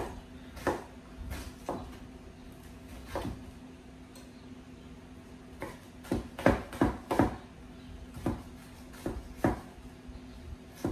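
Chef's knife dicing an onion on a wooden cutting board: a few scattered knife taps, then a quicker run of chops in the middle, several a second, over a faint steady hum.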